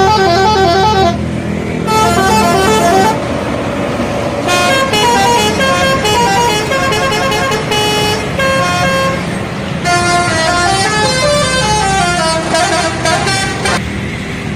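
Bus 'telolet' horn, a multi-trumpet musical air horn, playing quick tunes of short stepped notes in four phrases with brief gaps between them, over the bus's engine running.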